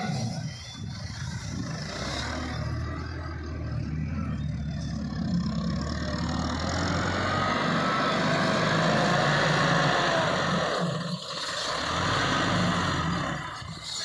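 Massey Ferguson tractor's diesel engine running under load as it works a front-end loader, dumping and then scooping soil. The engine note swells and wavers from about six seconds in, dips briefly near eleven seconds, then picks up again.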